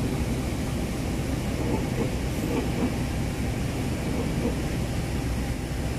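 Passenger train's coaches rolling past on the rails, a steady rumble of wheels on track.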